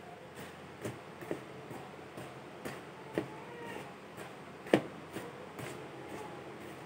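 Fingers rubbing and pressing crumbly nankhatai dough of ghee, sugar and flour in a bowl: soft rustling with irregular sharp clicks and knocks against the bowl, the loudest a little before five seconds in.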